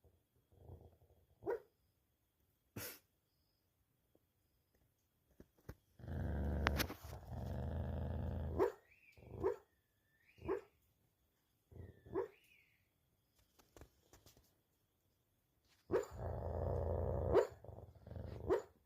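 A dog growling, woofing and whimpering in its sleep during a nightmare: two long low growls, one about a third of the way in and one near the end, with short stifled woofs and brief high whines between them.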